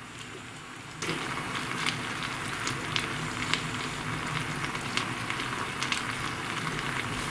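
Sugar and honey bubbling and sizzling in a small ladle over a gas flame, with scattered crackling pops; the sound steps up suddenly about a second in. The sugar is cooking down and darkening toward the burnt-sugar stage.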